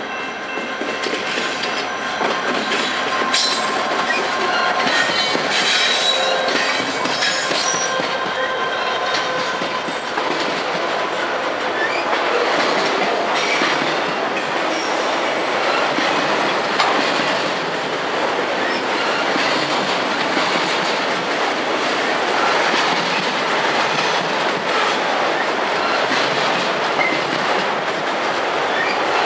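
Norfolk Southern freight train cars rolling past at steady speed, wheels clattering over the rail joints with intermittent thin wheel squeal.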